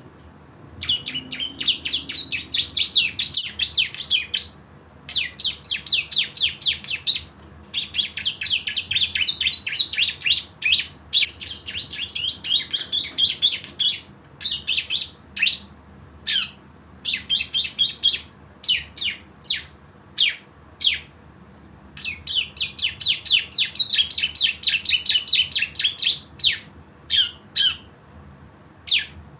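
Cisem (ciblek, a prinia) singing its fast rattling 'bren' song: rapid bouts of about ten sharp high notes a second, each bout a second or three long with short pauses between, giving way near the end to slower, spaced single falling notes.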